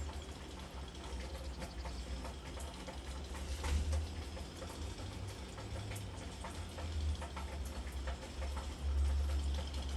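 Rain pattering in scattered small ticks and drips, over a steady low rumble on the microphone.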